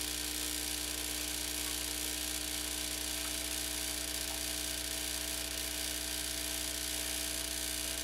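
Starbucks Barista (Saeco) espresso machine's vibratory pump buzzing steadily as it pushes water through the brew head into the cup, priming the pump to clear air from the system.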